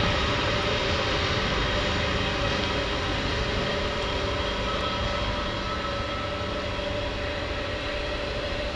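Diesel engines of railway track maintenance machines (a 08-32 Duomatic tamper and a USP 2005 SW ballast regulator) running steadily with a constant whine, slowly fading a little.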